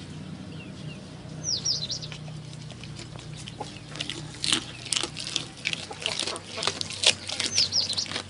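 A goat chewing a fish, heard as a dense, irregular run of crisp crunching clicks from about four seconds in. A bird gives short, high, falling chirps twice, early and near the end.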